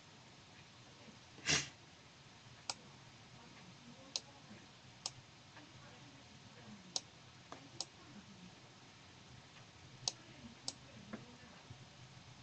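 Computer mouse clicking: single sharp clicks every second or so, about eight in all, with one louder, longer noise about a second and a half in.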